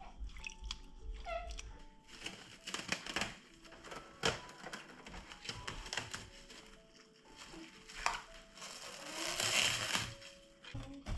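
Soft background music of held notes, with close handling sounds over it: a few sharp clicks and knocks, and a rustling swell near the end.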